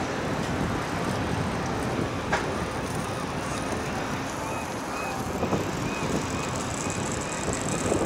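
Steady outdoor harbourside background noise: a continuous low noise with no single clear source. Faint short high chirps repeat about twice a second in the second half.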